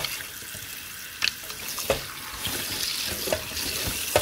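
Cold water from a kitchen tap running onto mussels in a stainless steel colander, splashing through the shells to cool the just-blanched mussels. A few short sharp clicks sound over the steady running water.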